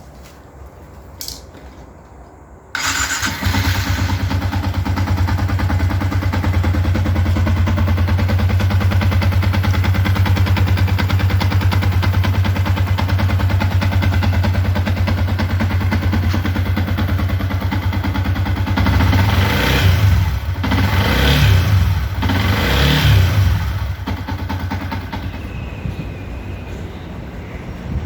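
Yamaha Y15ZR motorcycle's 150 cc single-cylinder four-stroke engine starting up and idling steadily, blipped a few times with quick revs about two-thirds of the way through before dropping back to idle.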